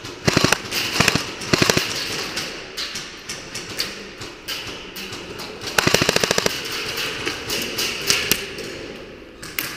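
Gas blowback airsoft gun, a WE MP7, firing rapid full-auto bursts: three short bursts in the first two seconds, a longer burst about six seconds in, then a few single shots.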